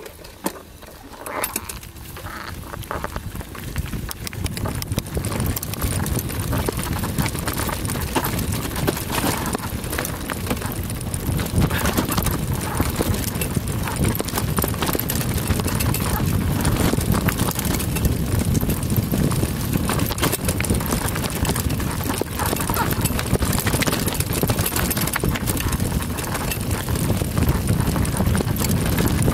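Bike rolling fast down a dirt trail: tyres on dirt with a constant clatter and rattle from the bike, under a rushing of wind on the handlebar-mounted camera. It builds up over the first few seconds as the bike gathers speed, then stays loud.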